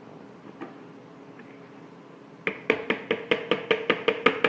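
A few faint clicks, then from about two and a half seconds in, a rapid run of sharp, ringing knocks at about five a second: a batter-coated stand-mixer whisk being tapped against the rim of the mixing bowl to shake off chocolate cake batter.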